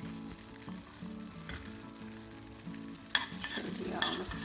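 Butter sizzling and foaming as it melts in a stainless steel pan, with a steady hiss. From about three seconds in, a metal ladle stirs through it, clinking and scraping against the pan.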